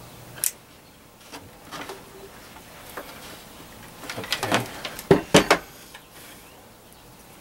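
A soldering gun's steady mains hum cuts off with a click about half a second in, as the trigger is let go. A few seconds later comes a cluster of sharp clunks and metallic clinks as the gun and tools are set down and handled on a wooden workbench.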